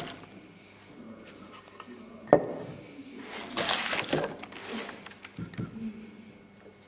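Timber and marking tools being handled on a workbench: a sharp wooden knock about two seconds in, then a scraping sweep lasting about a second as a hand brushes across the block, followed by a few lighter knocks.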